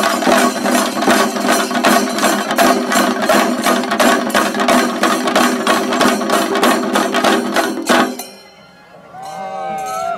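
A group of chenda drums beaten with sticks in a fast, driving rhythm that stops abruptly about eight seconds in. Voices rise and fall in the brief lull that follows.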